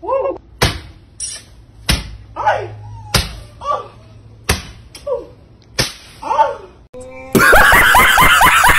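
Sharp smacks, like lashes, land about every two-thirds of a second, each series broken by short yelping cries that rise and fall in pitch. A little after seven seconds in, loud hysterical laughter bursts in and drowns them out.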